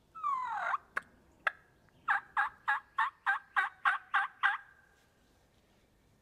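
A series of nine turkey yelps, about three a second, preceded by a short falling note and two sharp clicks.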